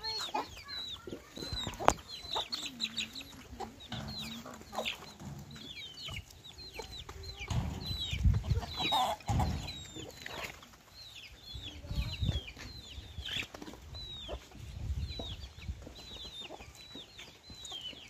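Free-range chickens clucking, with many short, high, downward-sliding chirps scattered throughout, and a few low thumps in between.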